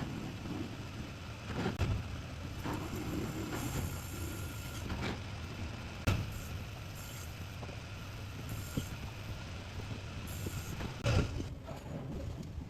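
Metal lathe running as a steel dumbbell weight is machined, a steady mechanical noise with a few sharp metallic knocks, about 2, 6 and 11 seconds in.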